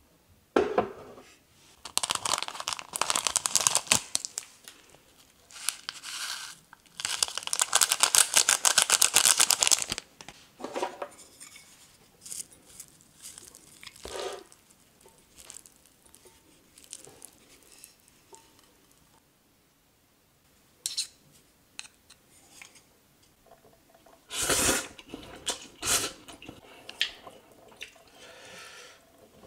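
A packet of seaweed-and-sesame flakes is torn open and crinkled over a bowl of stir-fried noodles, in two long crackling spells. After that, wooden chopsticks stir the sticky noodles, with light taps and clinks against the ceramic bowl.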